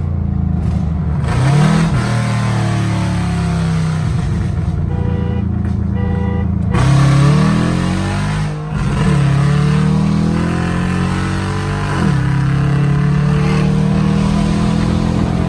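Chevrolet Camaro SS V8 engine running and revving up and down several times, its misfires fixed.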